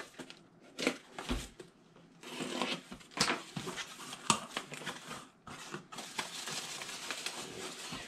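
Cardboard box being opened by hand: packing tape torn and flaps pulled apart with sharp scrapes and knocks, then a denser rustle of hands digging into foam packing peanuts.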